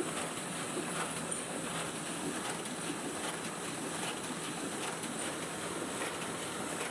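Sheet-fed offset printing press running, a steady mechanical din with faint irregular ticks as it feeds and delivers paper sheets.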